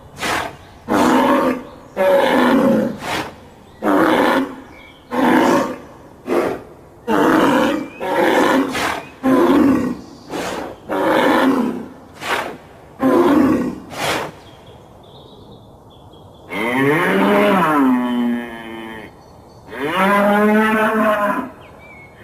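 Bull bellowing: a run of short, hoarse calls about once a second, then after a brief pause two long, drawn-out moos.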